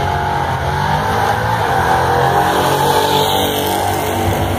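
Two drag-racing cars launching off the start line and accelerating hard down the strip, their engines running at full throttle.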